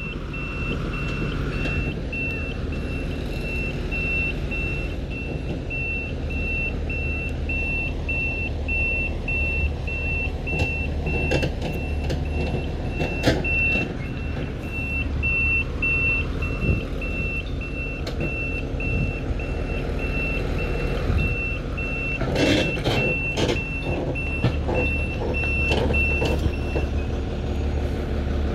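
Renault truck's diesel engine running low as the truck manoeuvres, its reversing alarm sounding a steady series of evenly spaced high beeps that stop near the end. A few scattered knocks come in between.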